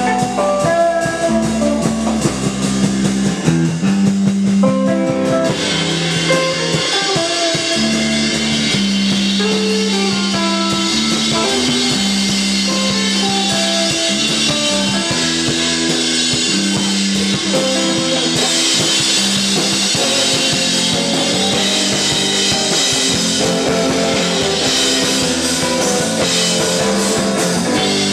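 Live rock band playing: an electric guitar picks a melodic line over bass guitar and drum kit. The drums' cymbals come in strongly about five seconds in and build again past the middle.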